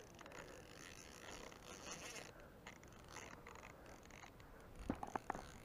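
Quiet handling of a carp rod and spinning reel: a faint rustle, then a short run of sharp clicks with a soft thump about five seconds in.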